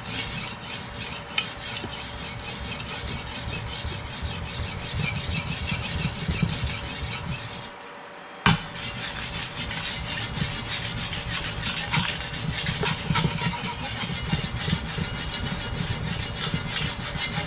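Large Chinese cleaver being sharpened on a water-soaked whetstone: repeated back-and-forth grinding strokes of steel on wet stone. The strokes stop for a moment about eight seconds in, a single sharp knock follows, and the grinding resumes.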